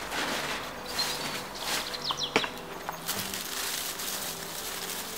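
Hands scraping and patting loose soil and rustling dry leaves while hilling up young potato plants in a raised bed. Birds chirp between one and two and a half seconds in, and a sharp click comes a little before halfway.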